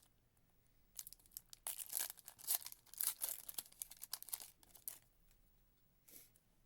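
Trading-card pack wrapper being torn open and crinkled. It is a dense run of crackling from about one second in to about five seconds, with a short rustle near the end.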